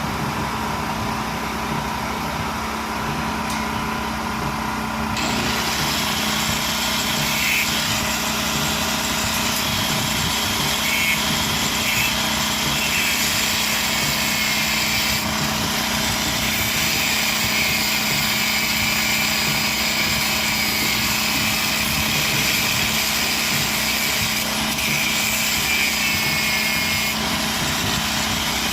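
Small engine running steadily at a constant speed, with a rougher, hissing noise joining about five seconds in.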